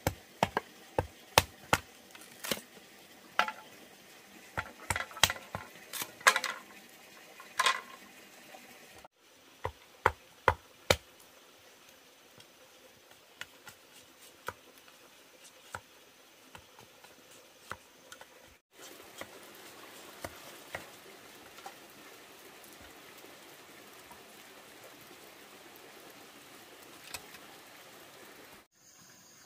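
A machete blade striking and splitting bamboo: sharp, irregular knocks, many in quick succession during the first nine seconds and a few more around ten seconds in. After that only scattered faint taps over a steady background hiss.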